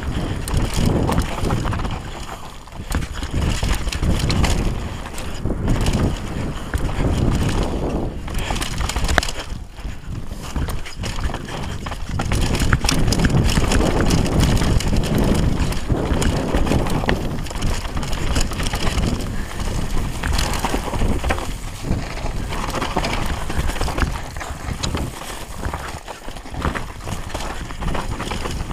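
Wind buffeting the microphone of an action camera on a downhill mountain bike at speed on a dirt trail, with the tyres rolling over dirt and roots and the bike rattling in short knocks throughout.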